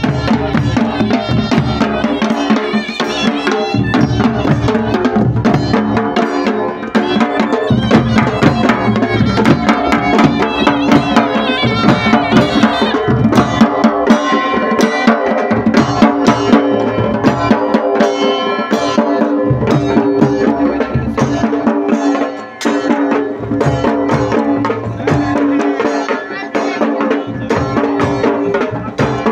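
Traditional Himachali folk wedding band playing live: dhol and other drums beating a steady rhythm under a shehnai melody and brass horns.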